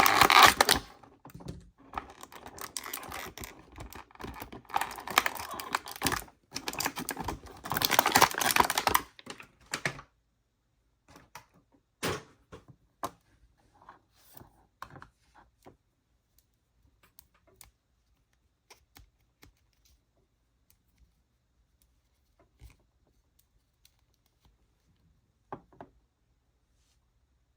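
Hands handling toy packaging and small plastic playset pieces: a dense run of crackling rustle and rapid clicks for about ten seconds, then scattered light clicks and taps.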